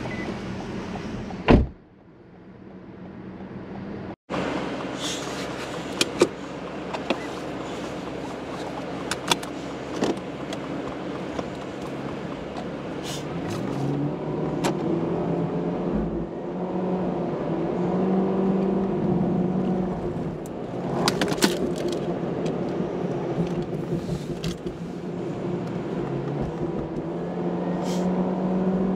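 Toyota Corolla's engine and road noise heard from inside the cabin while driving, the engine note rising and falling as the car accelerates and eases off, with scattered small clicks and knocks. A sharp knock comes about a second and a half in, followed by a brief lull.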